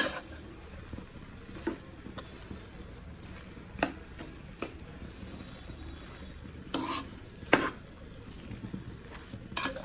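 A steel slotted spatula stirring and scraping grated sweet potato with melting jaggery in a nonstick pan, over a soft sizzle. The spatula clacks against the pan about seven times, loudest twice near the end.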